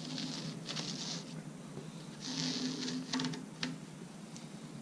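Old rubber weatherstrip being pulled out of a Datsun 280Z door frame's channel by hand: a few short bursts of rustling and scraping, with scattered small clicks.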